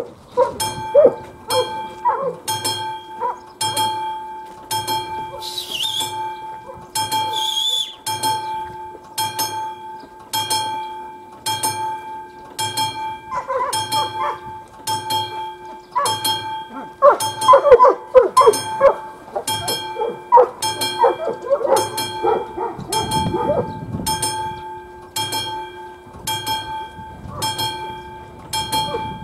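Classic level-crossing warning bell ringing in even strokes a little faster than once a second, each stroke leaving a ringing tone. It starts suddenly as the crossing lights begin to flash. Dogs bark intermittently through the middle.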